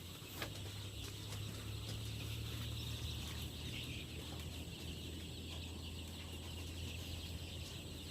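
A flock of eight-day-old layer chicks peeping together in the brooder, a steady chorus, over a low steady hum.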